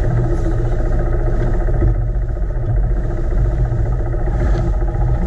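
Boat engine running steadily at a constant speed, a loud even drone with a deep rumble.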